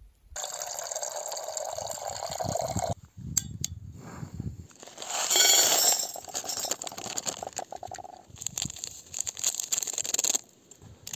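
Plastic food packets crinkling and rustling as instant noodles and a seasoning sachet are emptied into a steel camping pot, the dry food pouring onto the noodles. The loudest rustle comes about halfway through, with a few clicks shortly before it.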